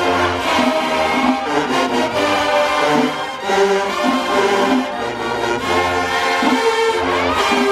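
Marching band brass section playing a tune loudly, with a few sliding notes.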